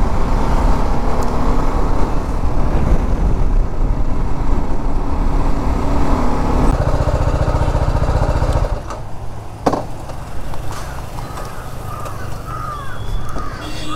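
Motorcycle engine running under way, then dropping sharply to a much lower level about two-thirds of the way through. Crows cawing near the end.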